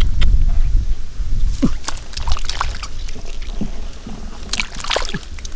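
Water sloshing and splashing, with irregular small sharp splashes.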